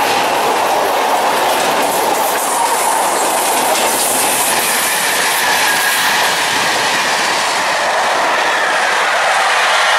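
Freight train passing close by: an SNCF BB 75000 diesel locomotive at the start, then a long rake of loaded hopper wagons, their wheels rolling and clattering over the rails in a loud, steady rush of noise.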